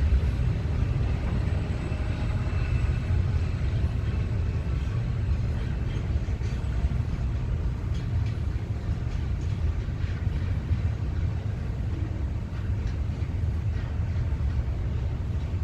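Diesel-electric freight locomotives running with a steady low rumble, with light clicks starting about six seconds in.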